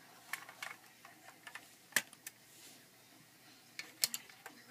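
Faint, scattered clicks and taps of small plastic toys being handled, about eight in all, the sharpest about two seconds in.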